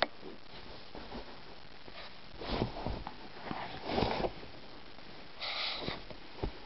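A Shih Tzu sniffing right at the microphone: three short bursts of breath noise, the first about two and a half seconds in and the others roughly a second and a half apart.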